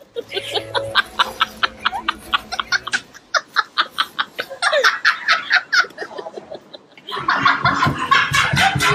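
People laughing hard in quick repeated ha-ha bursts, several a second; the laughter grows louder and denser about seven seconds in.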